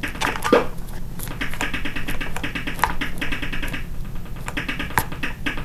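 8-bit TRS-80 Color Computer game sound effects: a rapid, even clicking patter with a few short rising blips.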